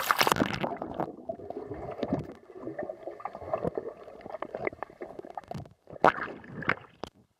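Swimming-pool water splashing around the microphone at the surface, then, about a second in, the sound goes muffled as the microphone goes underwater: gurgling and bubbling with scattered small knocks. Near the end a couple of brief splashes break through.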